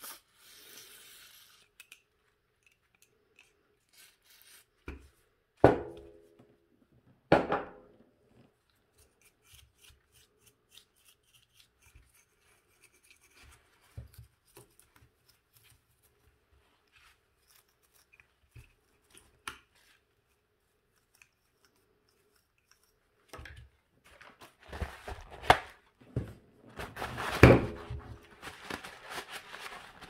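Hands cleaning a hair dryer motor: a short spray hiss at the start, two sharp clatters, then a long stretch of faint clicks and scratching as a small tool picks at the carbon-dusted motor. Near the end comes louder paper-towel rubbing and crinkling as the fan is wiped.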